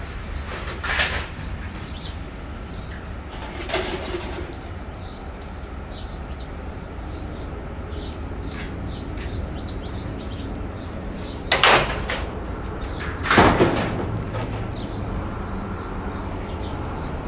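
Outdoor ambience: a steady low rumble with faint bird chirps, broken by four short bangs or scrapes, the two loudest about twelve and thirteen and a half seconds in.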